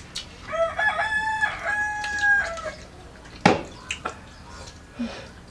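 A rooster crowing once, a call of about two seconds made of two held notes, followed about a second later by a single sharp knock.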